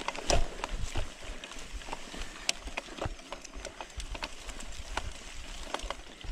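Mountain bike ridden over a rough, stony track: irregular clatter and knocks from the bike and its tyres striking stones, over a steady rushing noise.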